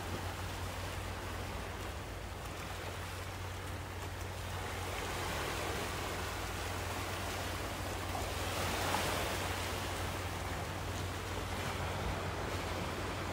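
Sea waves washing onto a rocky shore: a steady rush that swells into one louder wash about two-thirds of the way through, over a steady low hum.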